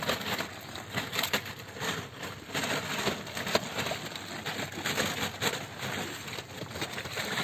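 Irregular splashes, slaps and rustles of a wet fishing net and flapping fish being handled by hand in shallow pond water.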